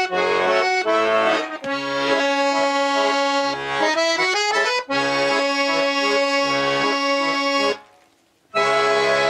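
Button accordion playing a tune, the melody over a rhythmic bass-and-chord accompaniment. The playing breaks off briefly about eight seconds in, then comes back on a held chord.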